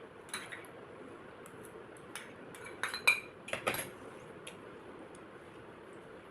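A few sharp clinks and knocks of cutlery against a plate, the loudest cluster about three seconds in, one of them ringing briefly.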